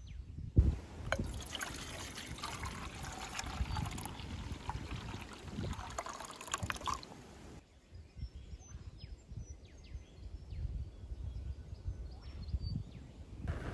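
Water trickling and pouring for about seven seconds, then small birds chirping in short calls.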